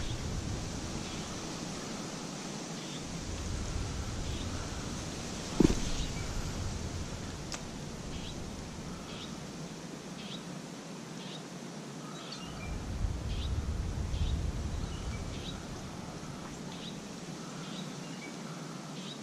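Outdoor ambience with a bird chirping over and over in short high notes, roughly twice a second through the second half, while gusts of wind rumble on the microphone twice. A single sharp click comes about five and a half seconds in.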